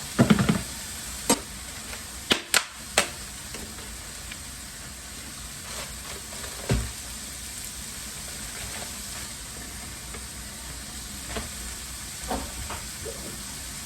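Beef burger patties sizzling steadily in a hot frying pan. A few sharp knocks come in the first three seconds and one more about seven seconds in.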